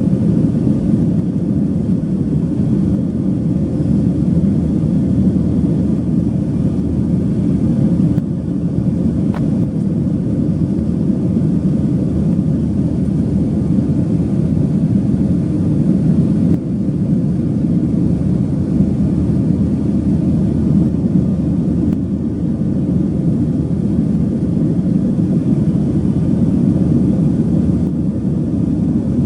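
Steady, loud, low jet-engine and airflow noise of a Boeing 737-800 with CFM56-7B engines, heard from inside the passenger cabin.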